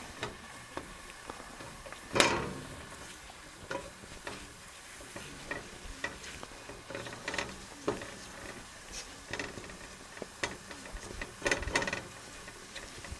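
A utensil stirring and scraping a butter-and-flour roux in a metal pot, with light, irregular clicks against the pot and one sharper knock about two seconds in.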